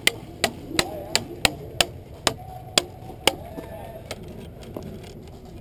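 A run of sharp airsoft gun shots in quick semi-automatic succession, about three a second at first, then spacing out and growing fainter after about three seconds.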